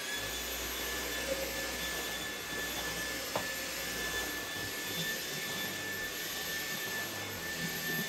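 Dyson V8 cordless stick vacuum running on high speed over a throw rug: a steady high-pitched motor whine over a rush of air, spinning up right at the start. A brief click sounds about three and a half seconds in.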